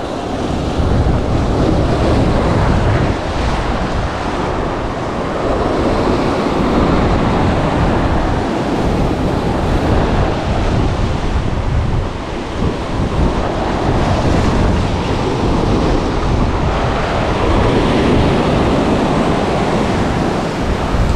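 Sea surf breaking and washing against a rocky shore, a continuous loud rush, with wind buffeting the microphone.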